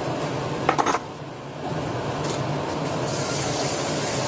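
Steady fan-like hum of kitchen background noise, with a quick clatter of kitchenware just under a second in, and a higher hiss joining from about three seconds in.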